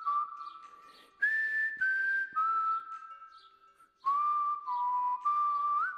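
A person whistling a slow tune in held notes. The notes step downward over the first half, break off for about a second, then carry on around a lower pitch before rising again near the end.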